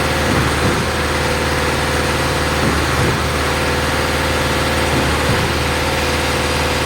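Concrete pump's engine running steadily under load, with a swell in the sound about every two and a half seconds.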